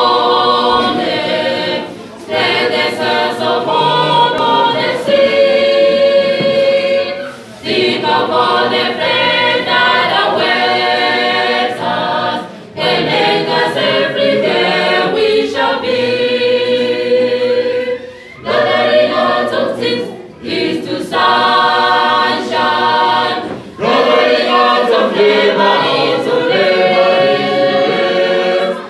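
Mixed choir of young men and women singing a cappella, in sustained phrases with short breaks between them.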